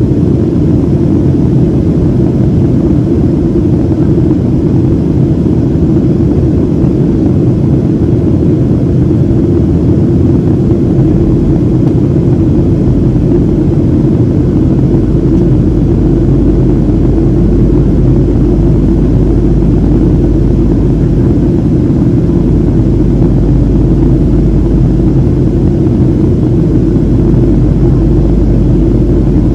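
Steady cabin noise aboard a Boeing 737-700 in flight: a constant low rumble of its CFM56-7B engines and the rushing air, heard from a passenger seat. The deepest part of the rumble grows a little stronger over the last several seconds.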